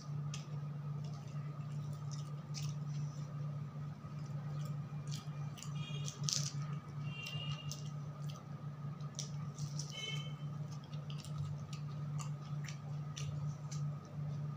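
Wet chewing, lip-smacking and small mouth clicks of a person eating rice and fried snacks by hand, irregular throughout, over a steady low hum.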